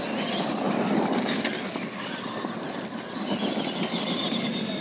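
Radio-controlled monster trucks racing over a dirt track: a high motor whine that rises and falls with the throttle over the steady crunch and scrabble of tyres on dirt.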